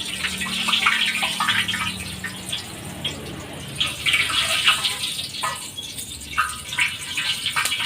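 Chicken deep-frying in hot oil: a steady sizzle with dense crackling and popping, thinning briefly a little past the middle.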